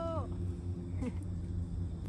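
Low, steady wind rumble on the microphone, with a voice's note sliding down in pitch at the very start.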